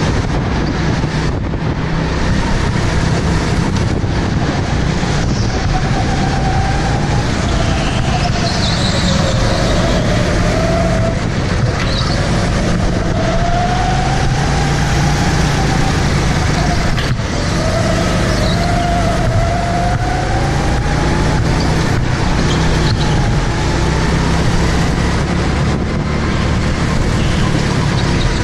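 Indoor racing go-kart's engine running hard at speed, heard from on board the kart, with a wavering whine that rises and falls through the middle as the kart works through the corners.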